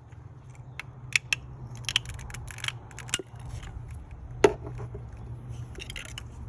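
A 2012 Audi TT's engine running at idle with an active misfire (codes P0300 random/multiple and P0304, cylinder 4), a steady low hum, with irregular sharp clicks and knocks over it, the loudest about four and a half seconds in.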